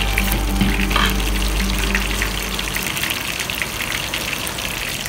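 Hot oil sizzling and crackling around a whole chicken frying in a pot; the chicken was boiled before frying. A steady low hum runs under it and stops a little past halfway.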